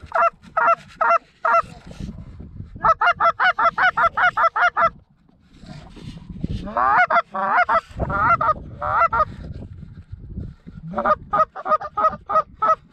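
Canada goose calls blown in loud, rapid runs of clucks, about four a second, with a stretch of longer drawn-out honks in the middle: hunters calling to geese working toward the decoys.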